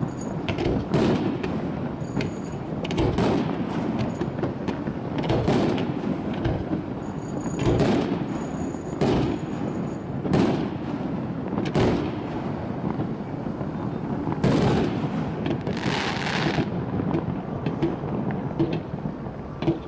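Fireworks display: aerial shells bursting in a steady run of bangs and booms, roughly one a second, with a rumble between them.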